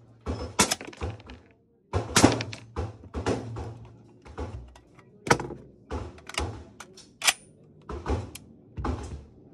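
An FN SCAR 16S rifle firing .223 rounds through a Nomad-L suppressor: a string of about a dozen shots at an uneven pace, roughly one every half second, each with a short ring-out after it.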